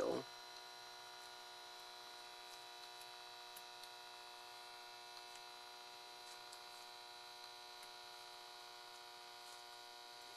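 Faint, steady electrical hum made of several constant whining tones, with a few very faint ticks.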